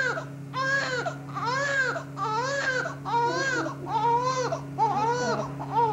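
Newborn baby crying: a steady run of short wails, each rising and then falling in pitch, about one a second, with a steady low hum beneath.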